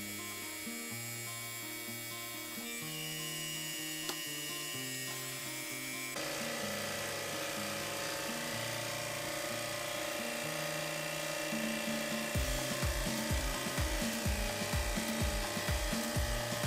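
Background music with a stepping bass line, joined about six seconds in by a steady hiss of spray, which fits a high-pressure washer rinsing an air conditioner; a regular low beat comes in near the end.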